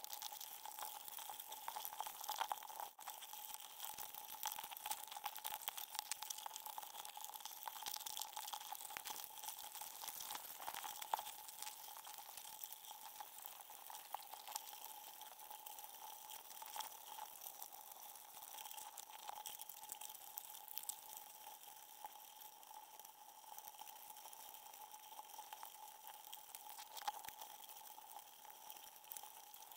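Faint underwater ambience picked up by a submerged camera at a crab trap: a steady crackle of many small clicks over a faint steady tone.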